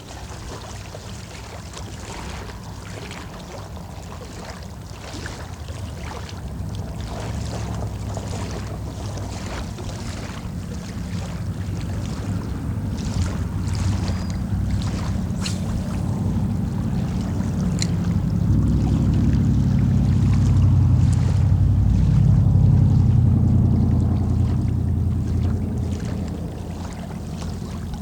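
A low engine rumble grows louder, peaks about two-thirds of the way through and then fades, like a motor passing by. Water laps with small splashes and ticks throughout.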